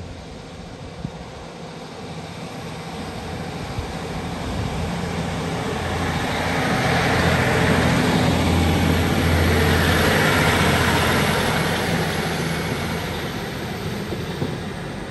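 Two-car Class 150 Sprinter diesel multiple unit pulling away from the station and passing close by. Its low diesel engine drone, mixed with running noise, builds steadily, is loudest from about seven to eleven seconds in, then begins to fade as the train draws away.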